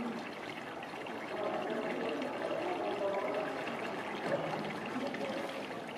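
Steady running water, with faint wavering voice-like sounds over it.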